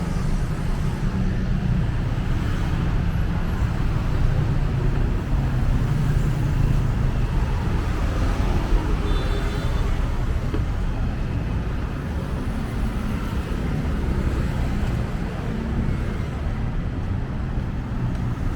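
Road traffic on a city street: a steady low rumble of passing vehicles.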